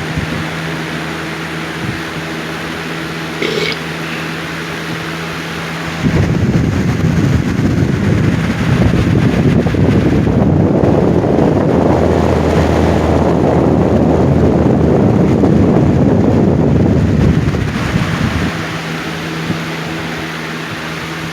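Late-1990s Lakewood box fan running on high speed with a steady motor hum. From about six seconds in, a louder rush of moving air covers the hum for about twelve seconds, then the plain hum returns.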